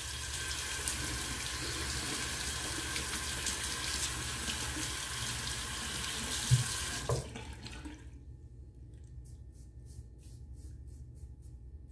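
Tap running into a sink for about seven seconds, with one knock near the end, then shut off. After that, faint short scraping strokes of a double-edge safety razor (the 'Merica razor with a Dorco blade) across lathered stubble on the cheek, about three a second.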